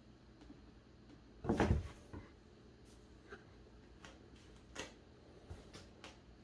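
Cats scuffling with a nylon pop-up play cube on a hardwood floor: a loud thump and rustle about a second and a half in, then a few light taps and knocks.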